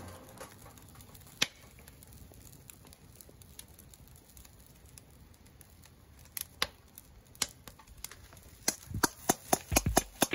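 Kitchen knife chopping on a cutting board: a few scattered taps, then, near the end, a quick steady run of chops about four a second.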